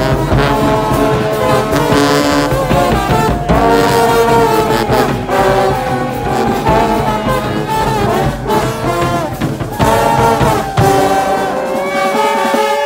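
Live brass band playing up close: trombones and a sousaphone with trumpets, over a marching bass drum.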